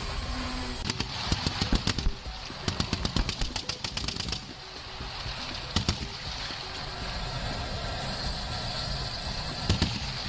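Rapid bursts of machine-gun fire, then a couple of short strikes of gunfire about six seconds in and again near the end. Under the shots, M1 Abrams tanks run with a steady rumble.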